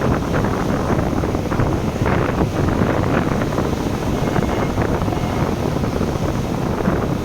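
Wind buffeting the microphone in a steady low rumble, over the wash of the sea.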